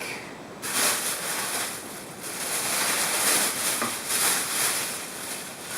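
Rasping, scraping noise of a drain snake's cable being fed into a garbage disposal's drain pipe. It starts about half a second in and swells and fades unevenly.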